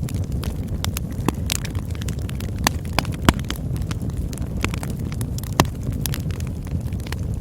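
Campfire burning: a steady low rumble of flames with frequent sharp crackles and pops, several louder snaps near the middle.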